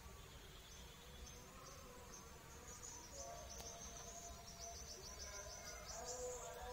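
Faint, high-pitched insect chirping in quick, uneven pulses.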